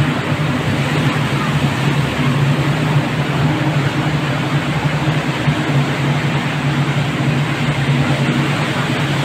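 River cruise boat's engine running steadily, a low drone, under a constant rush of water and wind. It is heard from the boat's stern.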